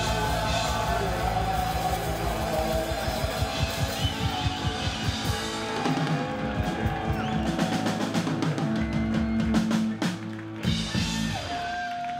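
Rock band playing a rock and roll number on drum kit and electric guitar with a steady beat; the drumming thins out and the song winds down near the end.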